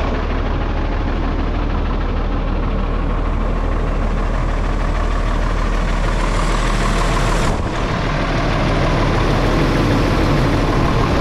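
Peterbilt 340 truck's diesel engine idling steadily, heard close at the open engine bay.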